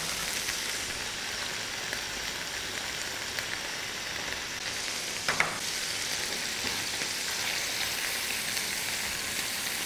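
Paneer cubes sizzling steadily as they shallow-fry in oil in a nonstick pan, with one brief click about five seconds in.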